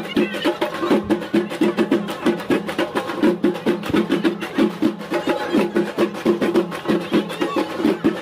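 Drums played in a fast, steady rhythm for the sannyasis' dance.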